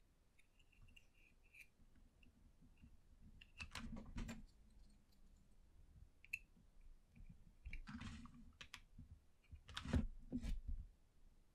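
Faint crinkling and clicking of a rolled aluminium-foil tube being handled and torn apart by hand, in three short clusters, the loudest near the end.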